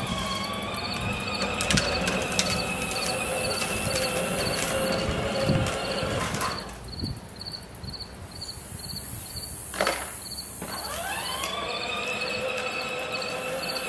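Electric motor and gearbox of a battery-powered John Deere ride-on toy tractor whining steadily. It stops about six and a half seconds in, then whines back up as the tractor sets off again near the end. Insects chirp steadily throughout.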